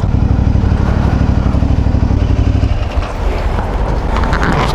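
Motorcycle engine running at road speed with wind rush; about three seconds in the engine note drops as the bike slows. A few short knocks or rustles near the end.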